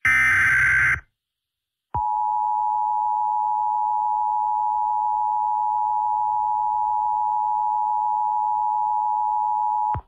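Emergency Alert System SAME header data burst, a one-second electronic screech, ending about a second in. After a second of silence, the EAS two-tone attention signal (853 and 960 Hz together) sounds steadily for about eight seconds.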